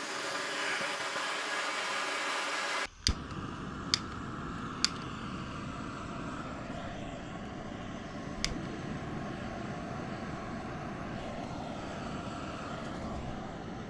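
High-output camping gas burners running at full flame with a steady rushing hiss. About three seconds in, the sound changes abruptly to a lower rumbling rush, with a few sharp clicks soon after.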